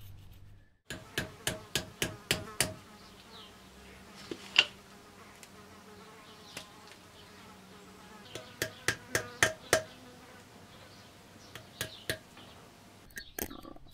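A small hammer taps a screwdriver, chiselling old glue out of the hall-sensor slots in an electric hub motor's stator. The taps come in short quick runs, with one sharper single tap between them.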